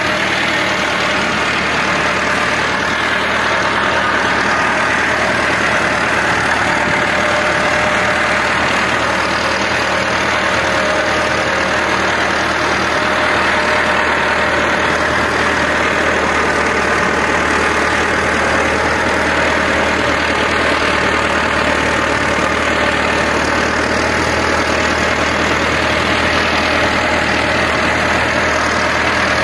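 Massey Ferguson 385 tractor's four-cylinder diesel engine running steadily while working a rotavator, loud and even throughout.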